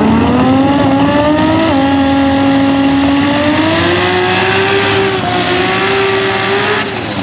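Drag car's engine revved high and held through a burnout, rear tyres spinning. The revs climb in steps, hold near the top, then drop sharply near the end as the throttle comes off.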